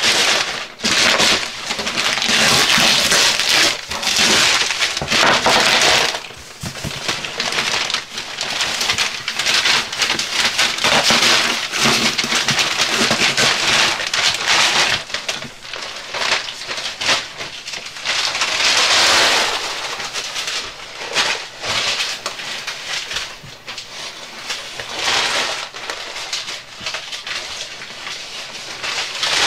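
Paper wrapping being ripped and crumpled off a cardboard box by hand: noisy spells of tearing and rustling, a few seconds each, with short pauses between.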